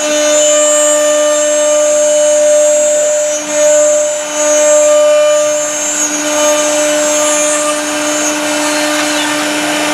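CNC router spindle running at a steady high-pitched whine while its bit cuts wood, with a hiss of cutting over it; the level dips briefly a few seconds in.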